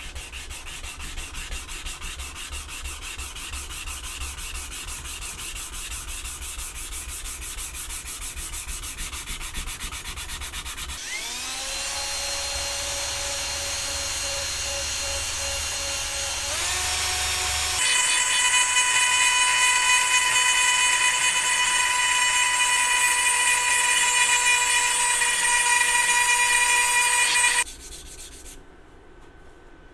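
A power sanding tool running on the steel axe head with 320-grit paper to give it a satin finish. Its motor whine rises about a third of the way in, grows louder past the middle, and cuts off suddenly shortly before the end.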